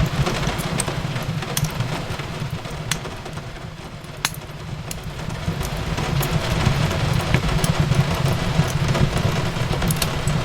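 Fireplace crackling: scattered sharp pops and clicks over a low, steady rumble of the fire, blended with an even hiss of rain, with one sharper pop about four seconds in.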